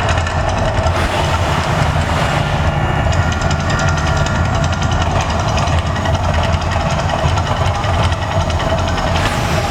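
The Mirage volcano show's steady, loud, deep rumble.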